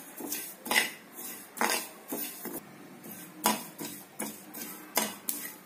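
Metal spoon scraping and knocking against a steel pan while cumin, sesame and poppy seeds are stirred during dry-roasting on low flame. The strokes are short and irregular, about one a second.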